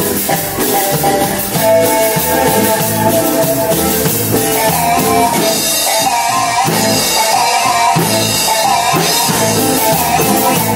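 Live band music with a drum kit keeping a steady beat under amplified melodic instruments.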